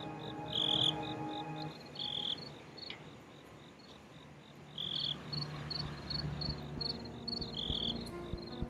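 Crickets chirping in a fast, even pulse of about four chirps a second, with a louder chirp every two to three seconds. Low held tones sit underneath in the first two seconds and return near the end.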